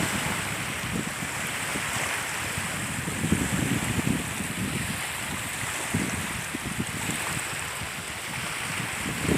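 Small waves washing at the shore, with wind buffeting the microphone in uneven low gusts.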